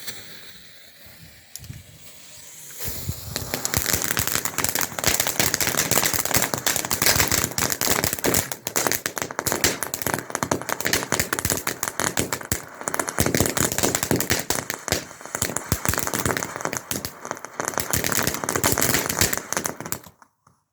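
Small firework fountain burning: a quieter hiss for the first few seconds, then a dense, rapid crackle of many small pops that runs on until it cuts out just before the end. It falters briefly partway through and picks up again.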